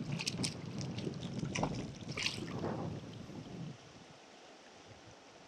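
Wind buffeting the microphone over a rushing river current, with a few short sharp sounds in the water. The rumble drops away about four seconds in, leaving the quieter run of the river.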